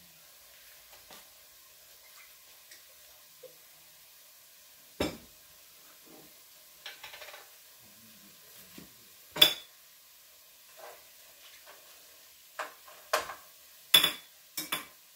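A cooking utensil stirring boiled spareribs in a pot on the stove, with faint sizzling as the ribs dry out over the heat. Several sharp clanks of the utensil against the pot, the loudest a little past halfway and a quick cluster near the end.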